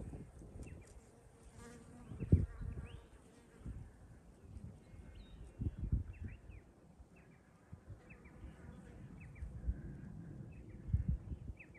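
Wind gusting on the microphone in irregular low rumbles, loudest a couple of seconds in and again near the end. A string of short, high, rising chirps runs over it, thickest in the second half.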